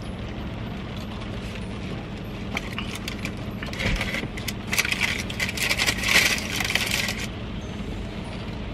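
Crinkling and rustling of fast-food packaging being handled, in crackly bursts from about two and a half seconds in until about seven seconds, over a steady low hum.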